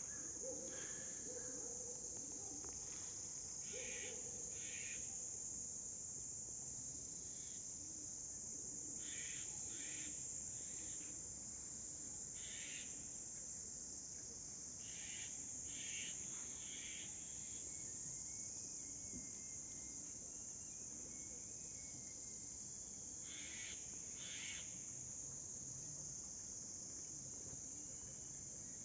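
Steady, high-pitched chorus of insects shrilling without a break. Shorter chirps stand out over it now and then, often in pairs.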